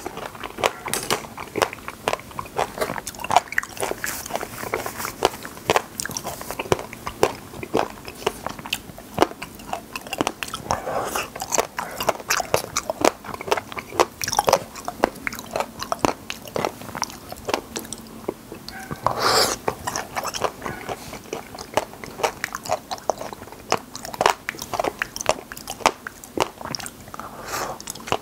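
Close-miked mouth sounds of a person eating wild raspberries: chewing with many quick, irregular wet clicks and smacks.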